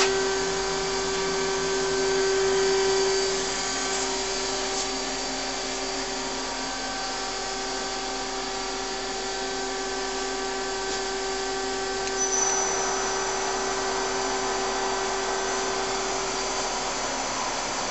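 Daewoo Puma 6G CNC lathe running with a steady mechanical whine, a little louder for the first few seconds. A faint high tone joins in about twelve seconds in.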